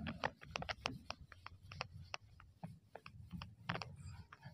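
Whiteboard being wiped clean with a hand-held duster: a faint, quick, irregular run of short scuffs and taps as the duster strokes across the board.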